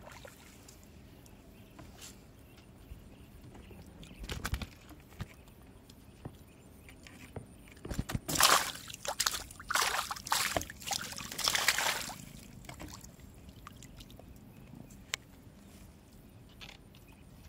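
A hooked tilapia splashing at the water's surface as it is played and landed on a fishing pole. There is a softer splash about four seconds in, then a run of loud splashes lasting about four seconds from around eight seconds in.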